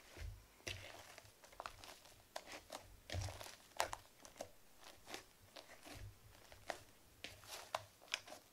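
Fluffy slime made of glue, shaving foam and borax activator being kneaded by hand in a plastic bowl: quiet, irregular crackling and squishing as the foamy slime is pressed and pulled, with a few soft low thumps.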